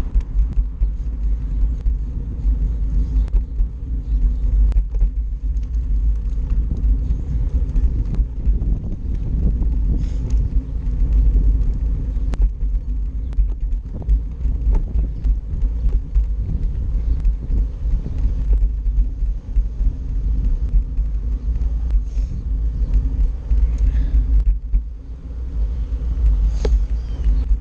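Steady low rumble of wind buffeting the microphone of an action camera moving along on handlebars, mixed with wheels rolling over pavement and passing car traffic.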